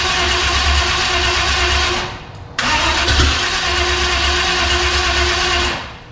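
Starter cranking a carbureted Chevy 350 small-block V8 that does not catch: two bursts of cranking, with a short break about two seconds in, and a stop near the end. The owner thinks he may have flooded the engine.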